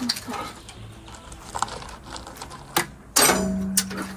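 Darts thrown at a dartboard on a brick wall: a few sharp knocks as they strike. The loudest comes about three seconds in, a dart hitting the wall hard, and is followed by a brief low steady tone.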